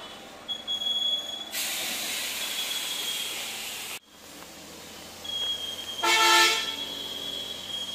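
A long, steady hiss lasting about two and a half seconds that stops abruptly, then a vehicle horn honks once, briefly and loudly, about six seconds in. A thin, high, steady whine sits beneath both.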